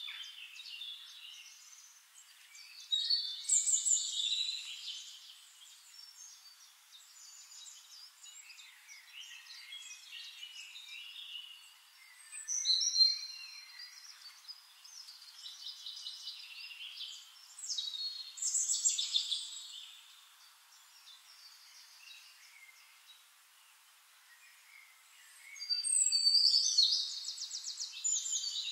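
Forest birds singing, several at once: a steady background of soft chirps, with four louder song phrases standing out over the stretch. The last one, near the end, is a fast trill.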